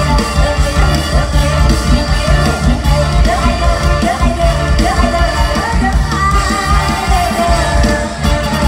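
Live Isan mor lam music, amplified loud: a woman singing over the band's steady bass-heavy beat.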